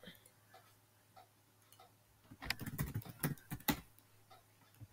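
Computer keyboard keys tapped in a short quick run of clicks, starting about two and a half seconds in after near silence.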